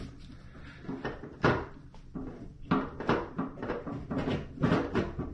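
Knocks and clunks on a stainless-steel sink as a basket strainer is pressed and turned into its drain opening in plumber's putty: one sharp knock about a second and a half in, then a quick irregular run of lighter knocks.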